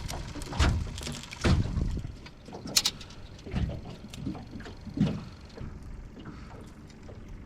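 Irregular knocks and clunks, about five in the first five seconds, as fishing gear is handled aboard a small boat, over a steady low hiss of wind and water.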